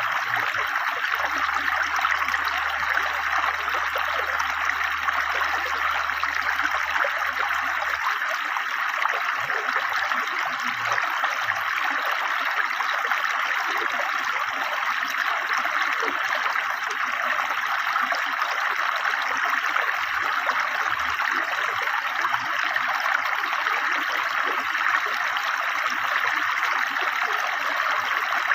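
A river stream flowing steadily, with an even rushing and gurgling of water that stays the same throughout.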